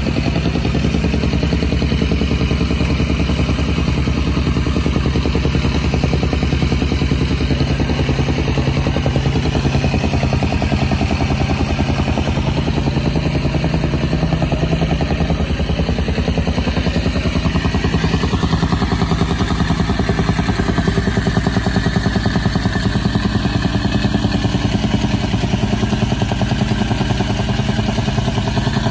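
A small engine running steadily at an even speed, with a regular rapid pulse.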